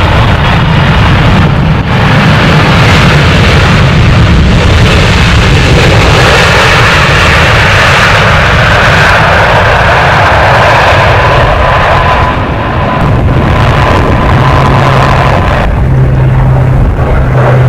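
Loud jet airliner engine noise from a plane passing close by, steady for many seconds. A thin whine shows through in the middle and a low hum toward the end.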